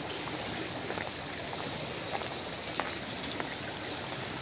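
Rain-swollen river flowing, a steady rush of water, with a few faint ticks in the middle.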